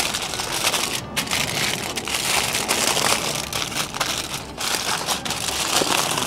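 Aluminium foil being folded, crumpled and pressed down by hand around a baking tray to seal it as a parcel: a continuous irregular crinkling and crackling with a brief pause about a second in.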